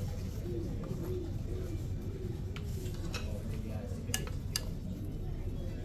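Cutlery clinking against plates and dishes at a meal, a few sharp clinks in the second half, over a low murmur of voices.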